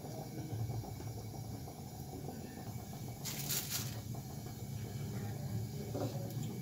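Milk curdled with vinegar simmering in a nonstick frying pan: a low steady hum, with a short hissing scrape a little over three seconds in.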